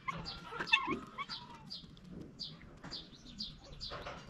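Birds chirping: short, high chirps repeating a few times a second, with a few lower, wavering calls about half a second in.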